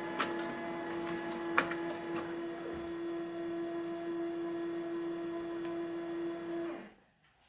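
Multifunction printer printing a sheet and feeding it out: a steady motor hum with a few sharp clicks in the first couple of seconds, stopping suddenly about seven seconds in.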